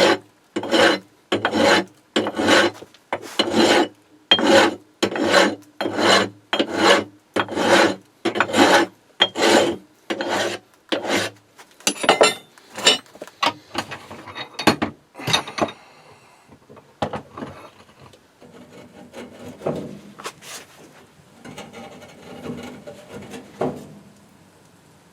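Hand file scraping back and forth over the mushroomed tip of a hammered drift rod to dress it, in steady strokes about three every two seconds. After about twelve seconds the strokes become irregular, and after about sixteen seconds they turn to fainter, lighter scraping.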